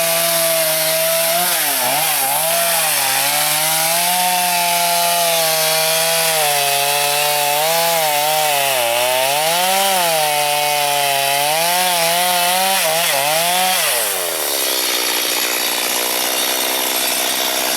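Two-stroke chainsaw cutting firewood, its engine pitch dipping and recovering again and again as the chain bites into the wood. Near the end the revs fall away to idle.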